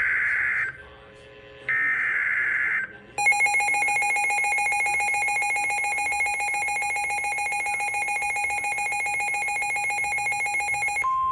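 Emergency Alert System tones: two short screeching bursts of the SAME header's digital data, then from about three seconds in a steady, loud two-tone EAS attention signal that holds until near the end.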